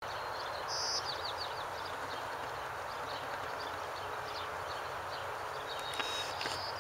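Steady rushing hiss of a fire boat's water cannons spraying. A bird chirps over it with a quick run of high falling notes about a second in and again near the end.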